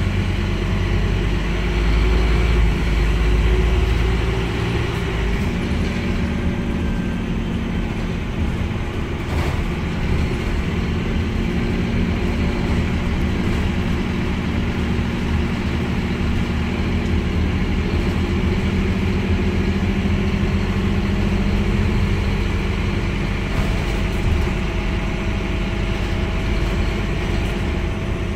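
Scania N230UD bus's diesel engine running as the bus drives along, heard from inside the passenger saloon with road noise. The engine note rises about five seconds in, holds steady, and eases off about two-thirds of the way through.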